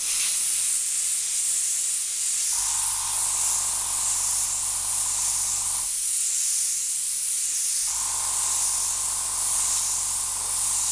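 Copic airbrush blowing a steady hiss of air across a marker nib, spraying ink onto a paper tag. A low hum with a midrange tone comes in about two and a half seconds in, stops near six seconds, and returns about two seconds later.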